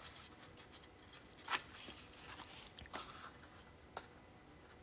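Small scissors snipping through printed craft paper in a few short, sharp cuts, the loudest about a second and a half in and others near three and four seconds.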